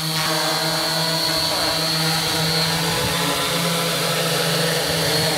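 Tarot 680 Pro hexacopter hovering: six electric motors and propellers giving a steady buzzing hum with a thin high whine above it.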